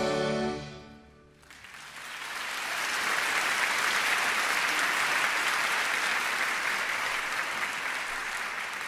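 The music ends on a held final note in the first second, and after a brief pause the audience breaks into applause that builds and then slowly tapers off.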